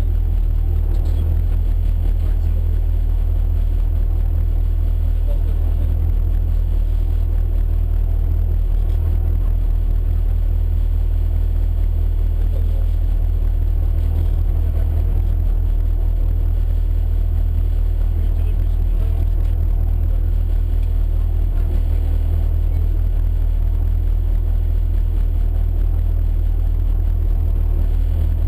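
Peugeot 106 rally car's four-cylinder engine idling steadily with a low drone, heard from inside the stripped cabin while the car stands still.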